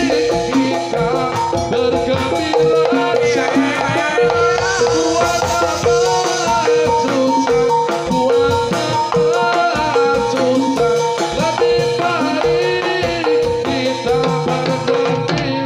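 Live jathilan music: Javanese gamelan-style ensemble with metallophones repeating short pitched notes over a steady beat of hand drums.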